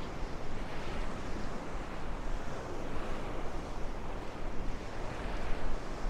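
Surf washing onto the shore under strong wind: a steady rushing noise, with wind buffeting the microphone in an uneven low rumble.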